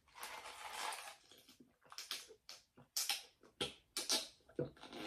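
Close-miked eating noises: soft chewing and mouth sounds, a hushed rustle in the first second, then a series of short, faint wet clicks.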